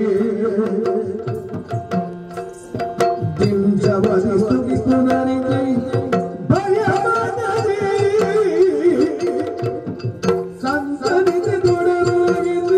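Yakshagana music: a chende drum struck in quick, busy strokes, along with a second hand drum, over a steady drone and a singing voice that wavers in pitch.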